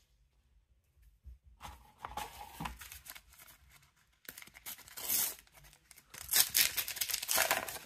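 A Panini sticker packet being torn open and the stickers inside handled: papery rustling and tearing in short spells, starting after a second or so of quiet, with the loudest tearing in the second half.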